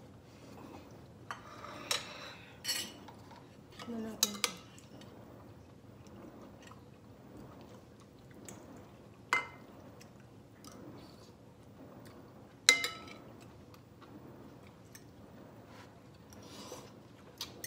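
A metal spoon clinking against ceramic bowls and plates during a meal: a handful of sharp clinks, spaced several seconds apart, the loudest about two-thirds of the way through, with quieter handling of the dishes between.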